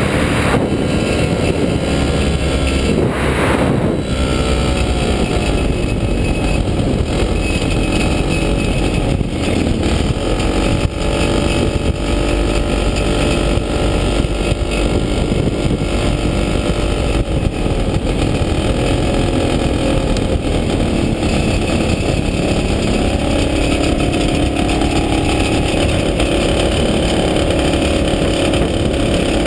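Falcon XP ultralight's engine and propeller running steadily, heard from the open cockpit with wind rushing over the microphone during the landing approach. The engine note dips a few seconds in and rises somewhat after about 24 seconds.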